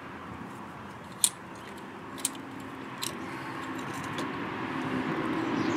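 Three sharp metallic clicks, about a second apart, from slip-joint pliers working the clamp on a carburetor fuel line, over a low background hum that grows louder near the end.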